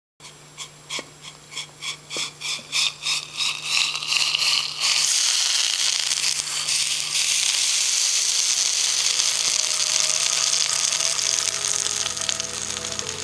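Liquid nitrogen poured over a YBCO superconductor disc. First comes a run of glugs that speed up and rise in pitch over about five seconds, then a steady hissing sizzle as the nitrogen boils off.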